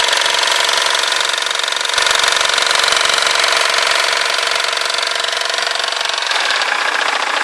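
2005 BMW 320d (E90) four-cylinder diesel engine running steadily with a fast, even knocking clatter: the knocking and vibration the owner is trying to capture.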